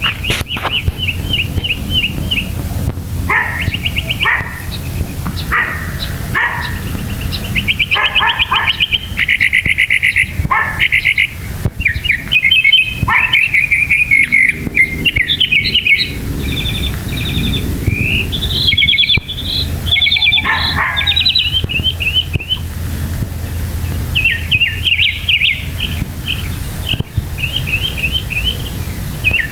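Northern mockingbird singing a long, varied song: quick trills and phrases of repeated notes that change every second or two, over a steady low background hum.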